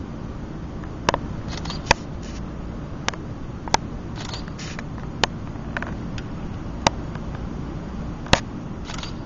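Camera shutters clicking at irregular intervals, about seven sharp clicks in all, over a steady low rumble.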